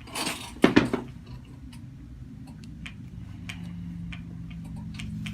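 Two sharp cracks close together about a second in, typical of a mid-cervical neck adjustment releasing the joints, just after a short rush of breath or movement. Faint scattered clicks follow.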